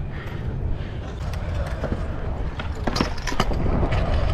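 Stunt scooter wheels rolling over skatepark concrete, a steady low rumble, with a few sharp clacks about a second in and again around three seconds in.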